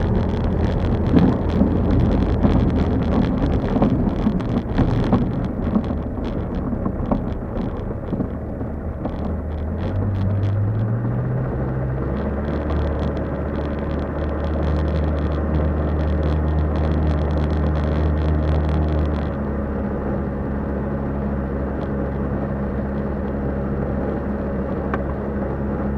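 Ekolot Elf's landing roll on a grass strip, heard from inside the cockpit: the rumble of the wheel on the grass and airflow noise, with many short knocks and bumps for the first dozen or so seconds. After that it settles into a smoother, steady low hum with a few held tones as the aircraft slows.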